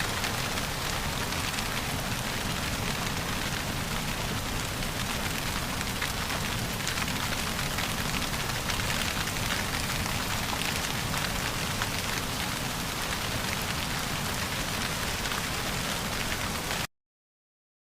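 Steady rain falling on a surface, an even hiss dotted with the patter of single drops, that cuts off suddenly near the end.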